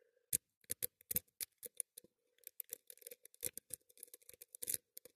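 A lock-pick rake is worked up and down in the keyway of a brass pin-tumbler padlock under tension, giving a fast, irregular run of small metallic clicks as it bounces the pins. The cylinder has only standard pins and no security pins, which is why raking works on it.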